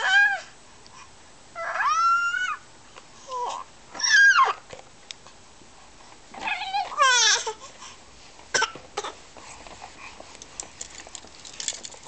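Baby's high-pitched squeals and coos, about five short bursts with the pitch sliding up and down, followed by a couple of small clicks.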